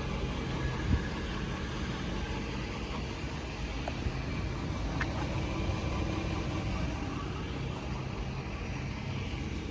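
Ford 6.7 Power Stroke V8 diesel idling steadily, with a single knock about a second in.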